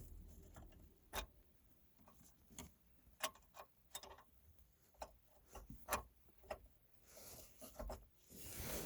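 Faint, irregular light clicks and taps as a small bolt is worked into place with a magnetic pickup tool while fitting a shifter assembly in a center console, with a soft rustle near the end.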